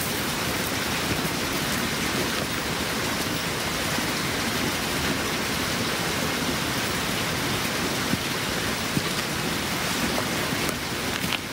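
A steady, even hiss across the whole range of pitch, rain-like, without breaks or distinct knocks.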